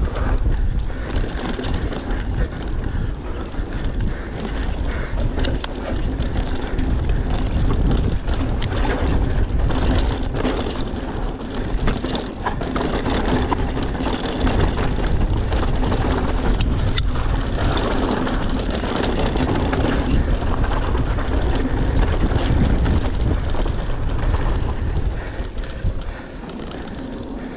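Mondraker Foxy enduro mountain bike descending a trail, heard from a GoPro on the bike or rider: wind buffeting the microphone, tyre noise and frequent rattles and knocks from the bike. It gets quieter a little before the end.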